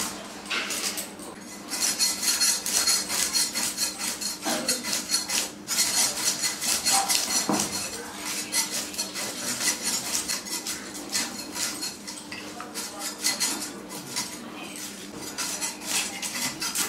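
Food being cut with a metal knife: quick, dense clicking and scraping strokes that go on throughout and are busiest for a few seconds early on, with a faint steady hum underneath.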